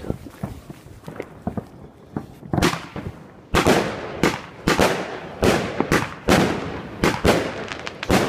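Pyro Moravia fireworks cake firing its shots. After a quieter start with faint clicks, sharp bangs begin about two and a half seconds in and follow one another at a little under two a second, each trailing off briefly before the next.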